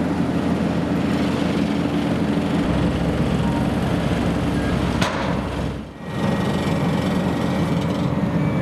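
Engine of road-works machinery running steadily, with a sharp click about five seconds in and a brief drop in sound about six seconds in.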